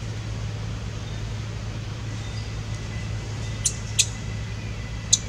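A steady low hum with three short, sharp, high-pitched squeaks: two close together past the middle and one near the end.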